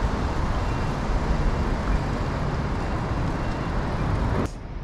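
Steady downtown street traffic noise: cars and trucks passing, with no clear single vehicle standing out. It drops off suddenly near the end to a quieter hiss.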